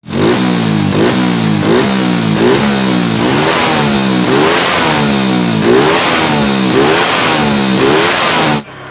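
Yamaha Vega-type four-stroke single-cylinder moped engine, breathing through a 26 mm carburetor on an angled intake manifold, revved with repeated throttle blips about once a second, each rising quickly and falling back. The sound cuts off suddenly shortly before the end.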